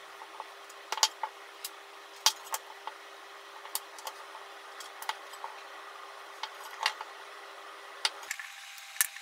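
Kitchen knife slicing hard dried mochi blocks on a mango-wood cutting board: a series of sharp, irregular knocks as the blade cuts through and strikes the board.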